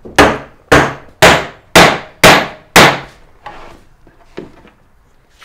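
Hammer driving nails into a wooden board: six sharp strikes about two a second, each ringing briefly, then two lighter taps near the end.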